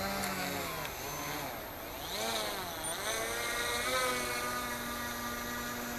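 Small brushless electric motors of an RC boat (Turnigy 2822 1400kV) whining under throttle, the pitch rising and falling several times, then holding steadier from about halfway.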